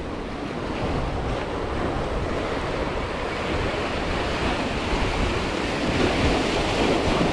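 Sea surf washing against shoreline rocks, with wind buffeting the microphone; the wash builds slightly louder over the stretch.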